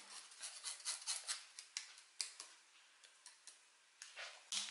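Small metal spoon scraping baking powder through a small mesh sieve: a run of light, quick scratchy clicks that thin out about halfway through, with a few more near the end.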